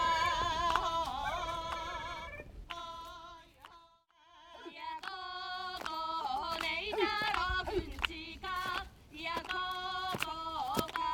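Women's voices singing a traditional Ainu dance song in held, wavering notes, with a few short sharp knocks. The song breaks off about four seconds in, and a new song begins.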